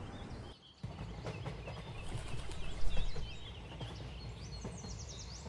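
Outdoor ambience: small birds chirping and whistling repeatedly over a steady low background rumble.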